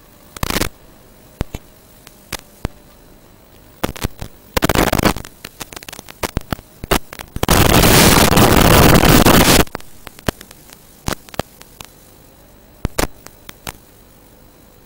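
Analog FPV video link static as recorded by the goggles: a low hiss with a faint wavering hum, broken by crackles and short bursts. About halfway through comes a loud rush of white-noise static lasting about two seconds, the sign of the video signal breaking up.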